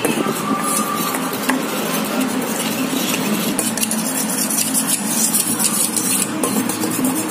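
A spoon stirring a maida and cornflour batter in a steel bowl, with light scraping and small clinks against the metal, over a steady low drone.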